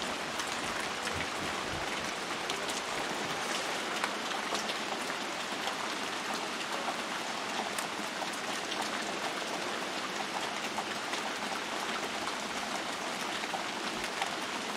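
Steady downpour of rain: an even hiss with faint scattered drop ticks.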